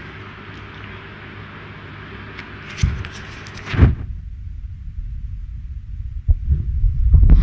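Handling noise from a smartphone held as a microphone: low thumps and rumbles as the hand shifts and rubs it, with one sharp knock about four seconds in and the loudest cluster near the end, after a steady hiss in the first few seconds.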